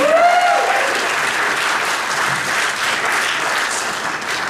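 Audience applauding, with a brief voice rising and falling over it near the start.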